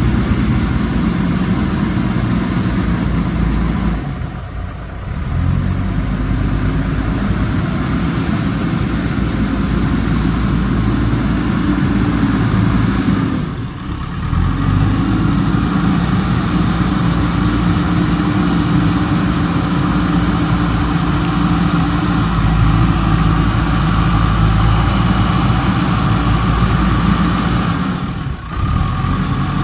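Diesel engines of a JCB backhoe loader and tractors running steadily at work. The sound drops briefly three times: about four seconds in, near the middle, and near the end.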